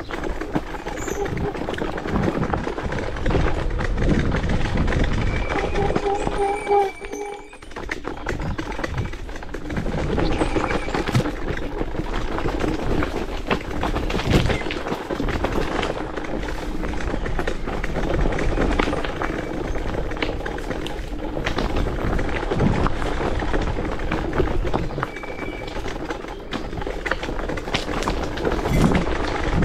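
MS Energy X10 electric scooter ridden down a rough forest dirt track: a steady rumble and rattling of tyres and frame over the ground, with a faint steady whine and a brief quieter moment about seven seconds in.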